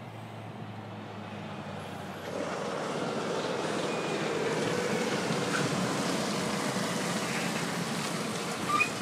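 A tractor unit hauling a concrete pump trailer approaches, its diesel engine and tyre noise growing louder over the first few seconds and then running steadily as it pulls past. A brief high squeak comes near the end.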